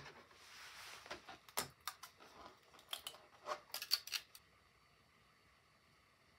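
Flexible steel 3D-printer build plate being handled and flexed to pop a printed part off, giving a run of light clicks and taps for about four seconds before it goes quiet.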